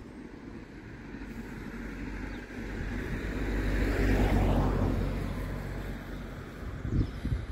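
A road vehicle driving past, growing louder to a peak about halfway through and then fading away.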